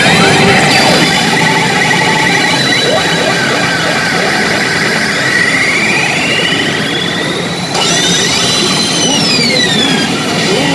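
Hokuto Musou pachinko machine sound effects: electronic whistling tones that glide up and down over a dense clatter, a slow rising sweep near the middle and falling sweeps near the end. This is the 'kirin flash' alert, the premium cue that a jackpot is very likely.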